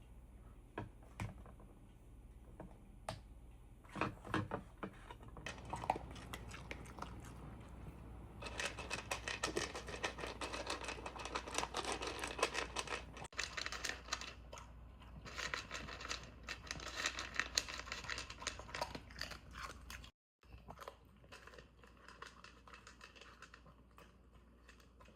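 Crinkling, rustling and tearing, like paper, cardboard or plastic being handled and torn, in dense spells after a few light knocks and taps.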